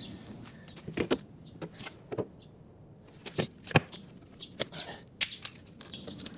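Light, irregular clicks and knocks as a window frame is shifted and shimmed in its rough opening.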